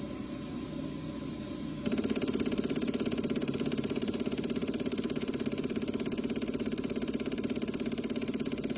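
Common-rail diesel injector test bench with a new Volkswagen 1.6 TDI piezo injector (03L130277B): first a steady hiss and hum while the rail pressure builds towards 80 MPa, then about two seconds in the injector starts firing its emission test dose, a sudden, louder, rapid and very even ticking.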